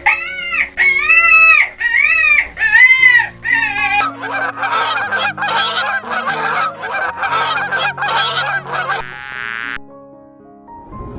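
Farm fowl calling: about six loud calls that rise and fall in pitch in the first four seconds, then a cut to a denser run of rapid calls until near the end, over soft background music.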